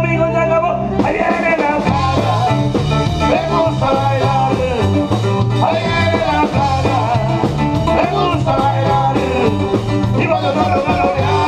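Live norteño band playing an instrumental passage of a rock-and-roll number: button accordion and alto saxophone carry the melody over bass and drum kit. A held chord opens, and the full band with drums comes back in about a second in.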